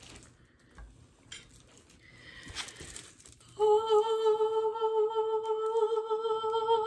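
A woman humming one long, steady held note that starts about halfway in, after a few seconds of faint handling noises.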